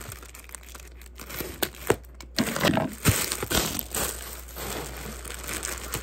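Clear plastic gift bag crinkling as it is cut and pulled open. A few sharp snips of scissors come in the first couple of seconds, then steady crackling as the bag is handled.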